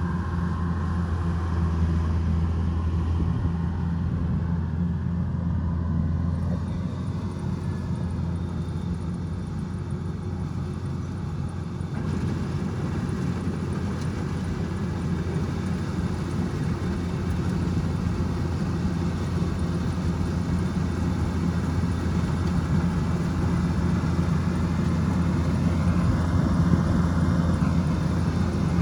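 Kubota DC105X combine harvester running steadily, a constant low engine drone that grows a little louder near the end.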